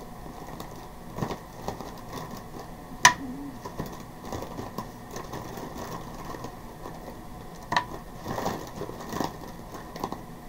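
Acrylic paint tubes being picked through and handled: scattered sharp plastic clicks and knocks, the loudest about three seconds in, with a cluster more near the end.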